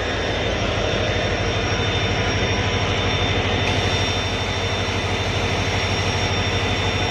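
Stationary Indian Railways locomotive running at idle close by: a loud, steady drone with a fast, even low throb and a thin high whine over it.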